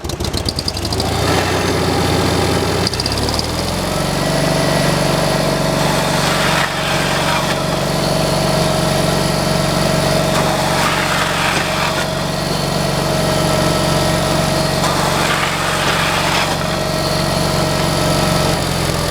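Small gasoline engine on a homemade slab-wood cutting machine catching and starting, picking up speed a few seconds in, then running steadily with a constant whine over the engine note.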